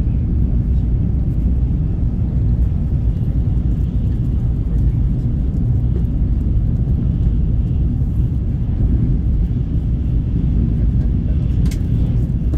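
Steady low rumble of a Tokaido Shinkansen bullet train running at speed, heard inside the passenger cabin.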